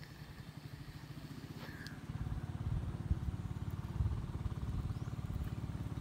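Wind buffeting the microphone: a low, fluttering rumble that grows louder about two seconds in.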